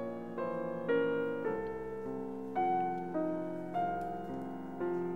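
Background music: a slow piano melody, a new note struck about every half second and left to ring.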